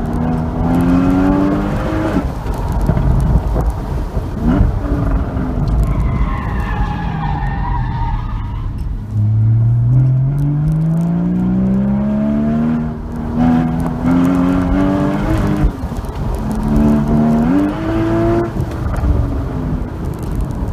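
Porsche Boxster 981 GTS flat-six engine pulling hard through the gears on a track lap, its pitch climbing and then dropping at each upshift or lift. About a third of the way in, the tyres squeal through a slow corner, then the engine climbs steadily for several seconds as the car accelerates out.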